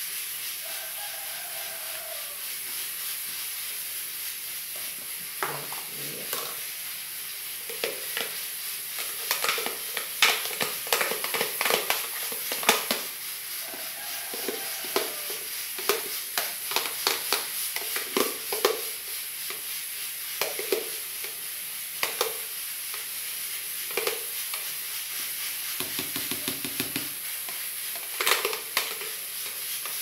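Spoon scraping and knocking inside a plastic blender jar as thick, stiff blended soap paste is scooped out and dropped into plastic tubs. There are many irregular clicks and scrapes over a steady hiss, thickest in the middle.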